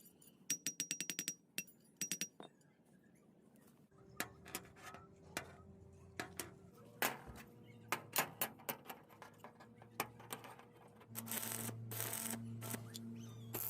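Metal pieces clinking and tapping, with short metallic rings, then a louder crackling buzz over a low hum from about eleven seconds in.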